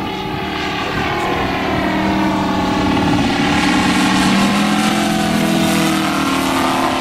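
Radial ('star') engine of a large RC aerobatic model plane running under power in flight. It grows louder as the plane comes past, and its pitch drops a little near the end.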